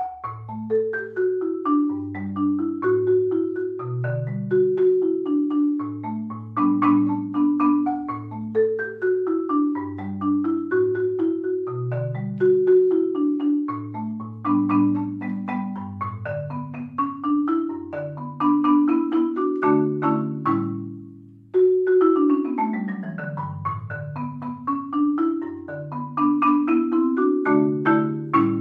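Marimba music: an upbeat melody of quick struck notes over low bass notes. It breaks off briefly about two-thirds of the way through, then picks up again and fades out at the end.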